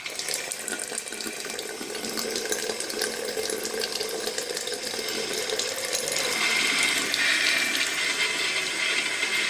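Water running steadily from an opened household tap, a little louder about six seconds in, with no hum: the tap's cartridge has just been greased and refitted, which cured its humming.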